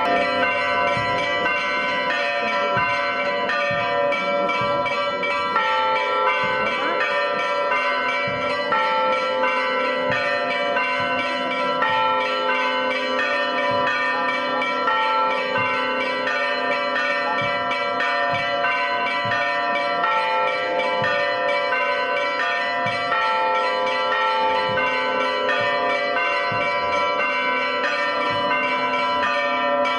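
Church bells ringing continuously, many bells struck over one another in a steady festive peal.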